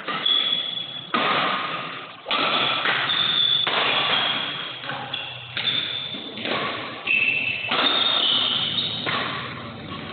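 Badminton rally: rackets striking the shuttlecock about once a second, about eight sharp hits, each ringing out in the large hall.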